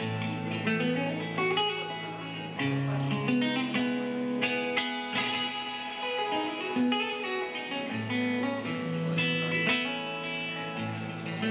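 Guitar playing a plucked, fingerpicked passage, quick melody notes over deeper held bass notes, a piece announced as demanding a lot of finger strength.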